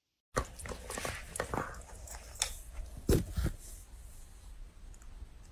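A dog chewing on a hard object: quiet crunching with scattered clicks, the sharpest a pair about three seconds in.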